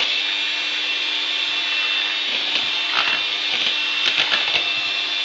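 Electric mixer running steadily at a constant speed, beating thin crêpe batter to work in freshly added flour, with a few sharp knocks around three to four and a half seconds in.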